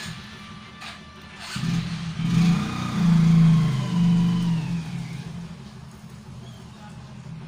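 A motor vehicle's engine passing by, swelling about a second and a half in, then dropping in pitch and fading. A few light clicks near the start.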